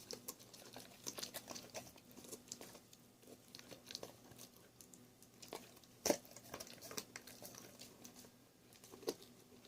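Dog chewing and crunching on pieces of chicken, faint scattered wet clicks and crunches, with one sharper crunch about six seconds in.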